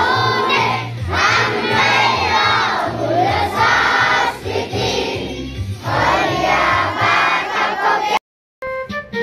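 A large group of schoolchildren singing together in unison. About a second before the end the singing cuts off abruptly, and after a brief silence organ-like keyboard notes begin.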